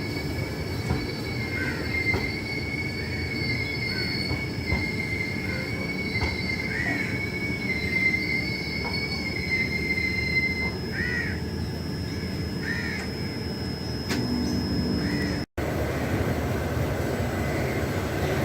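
Passenger train running, its wheels squealing on the rails in steady high tones over the rumble of the moving coaches. The squeal fades out part-way through. The sound cuts out for an instant about fifteen seconds in.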